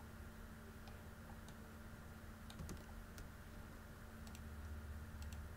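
Faint, irregular clicks of computer keys and mouse buttons, scattered a few to a second, over a steady low hum.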